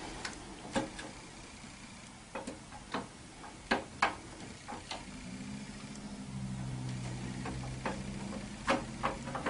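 Scattered light clicks and taps of metal and plastic parts being handled at a scooter's front wheel hub as the speedometer cable drive is set in and turned by hand. A low steady hum comes in for a few seconds in the second half.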